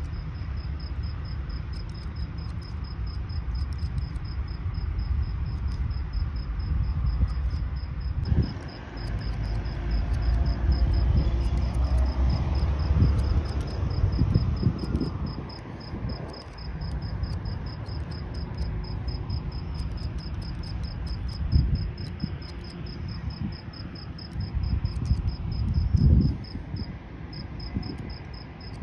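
A cricket chirping in a fast, even, high-pitched pulse, with a brief break near the end. Scissors snip through hair in short crisp clicks, and a low rumble swells around the middle and again near the end.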